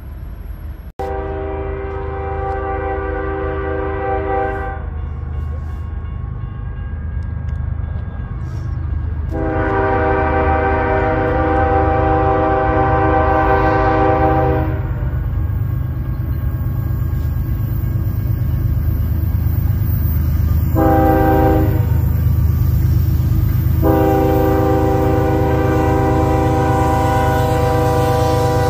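Locomotive air horn sounding the grade-crossing signal: two long blasts, a short one, then a long one. The train's steady low rumble grows louder underneath.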